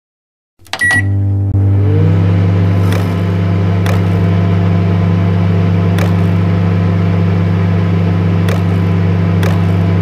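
Robot vacuum cleaner sound effect: a short electronic beep as it switches on, then a steady motor hum that rises briefly as it spins up. A few sharp clicks sound over the hum.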